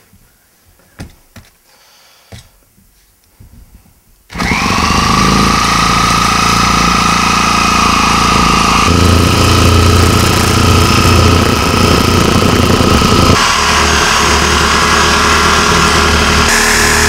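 A few light handling knocks, then about four seconds in a Sawzall reciprocating saw starts and runs continuously, its motor whine rising and then holding steady. The blade cuts into the plastic case of a 12-volt AGM lead-acid battery, and the saw's tone shifts twice during the cut.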